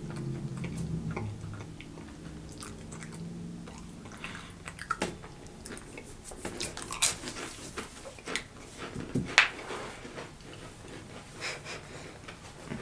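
Dry saltine crackers being bitten and chewed, with scattered, irregular crisp crunches.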